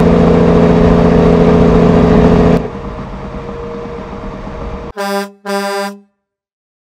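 A semi truck's air horn blows one long, loud two-tone blast that cuts off suddenly after about two and a half seconds, leaving the truck's engine and road noise. Two short horn toots follow near the end.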